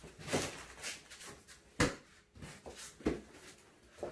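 Several short knocks and thumps with rustling in between as training pads are picked up, handled and put down on a foam floor mat; the loudest knock comes a little under two seconds in.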